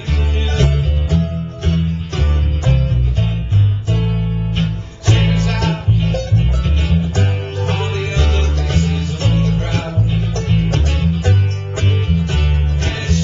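Bluegrass band playing live: mandolin and acoustic guitar picking over an upright bass plucking a steady run of low notes.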